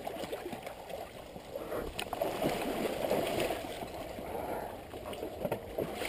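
River water sloshing and gurgling as a drowned dirt bike is dragged through the shallows, with a sharp knock about two seconds in and another near the end.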